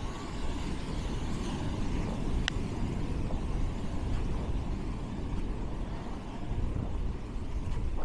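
Wind buffeting the microphone: a steady, uneven low rumble. A single short, sharp high sound stands out about two and a half seconds in.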